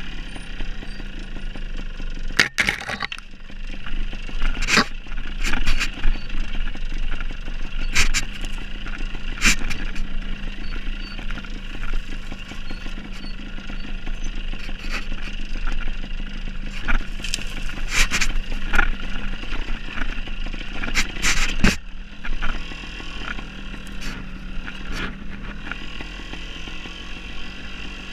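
Dirt bike engine running steadily at low revs while riding slowly over loose rocks, with repeated sharp knocks and clatter, the loudest about two seconds in, around eight seconds, and in a cluster near twenty-one seconds.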